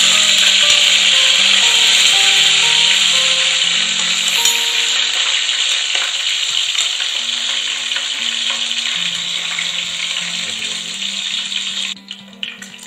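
Curry leaves sizzling hard in hot oil with mustard seeds and dried red chillies, a tempering (tadka) being made. The sizzle is loudest at first, slowly eases, and drops off about twelve seconds in. Soft background music plays underneath.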